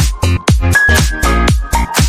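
Background electronic dance music with a steady four-on-the-floor beat, about two kicks a second.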